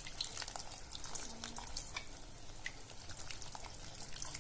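A steel ladle stirring a thick, bubbling curry in a metal kadai, with scattered small pops and light scrapes.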